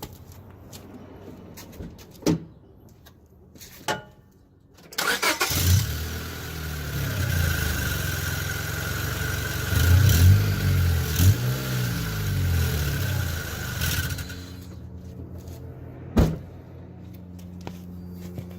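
Lowered 7th-generation Honda Civic's four-cylinder engine starts about five seconds in after a few clicks and is revved several times. It has the raspy, high-pitched "farting" exhaust leak from the open O2-sensor hole in the catalytic converter, where the sensor was ripped out. Near the end it drops back to a quieter steady idle.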